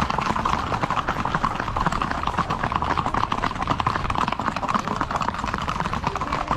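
Hooves of a group of horses clip-clopping quickly and continuously as they ride along.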